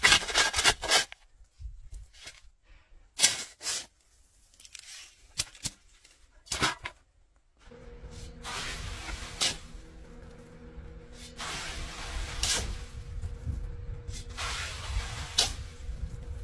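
Steel shovel scraping and digging into dry, gravelly dirt, a few sharp scrapes a couple of seconds apart. After about seven seconds, shovelfuls of dirt and gravel are tossed onto a sifting screen and hiss as they fall through, over a steady low hum.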